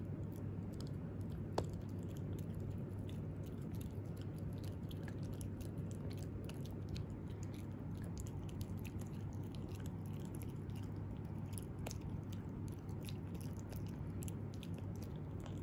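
Italian greyhound puppy gnawing and chewing a dental chew stick, many small irregular crunching clicks of teeth on the chew, with one sharper click about a second and a half in.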